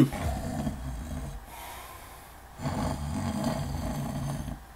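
A man imitating snoring: two drawn-out, rasping mock snores, the second starting about two and a half seconds in, acting out dozing off from boredom.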